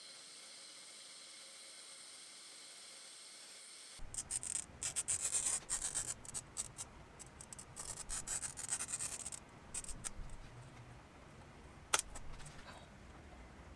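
A steady hiss, then a glass cutter's wheel scoring a curved line across a sheet of glass: a fast, gritty scratching. About twelve seconds in comes a single sharp crack, which sounds like the glass being snapped along the score.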